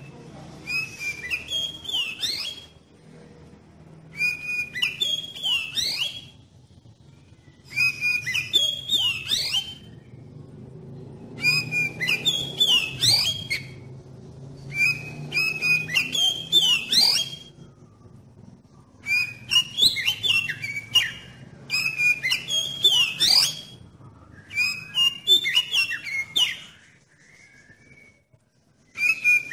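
Oriental magpie-robin (kacer) singing: about eight varied phrases of rapid sliding whistled notes, each lasting about two seconds, with short pauses between them.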